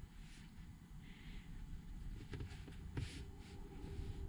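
Quiet car-cabin background with a faint low rumble and a few soft clicks as a handheld scan tool is handled.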